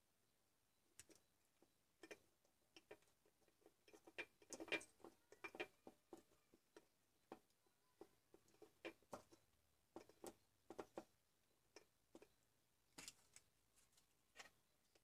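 Faint, irregular small clicks and taps as a small circuit board, its wires and a soldering iron are handled on a workbench, busiest a few seconds in.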